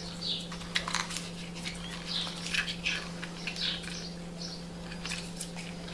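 Light plastic clicks and scraping as snap-on landing legs are pushed onto the plastic body of a JJRC H31 quadcopter. A few short high chirps come through, over a steady low hum.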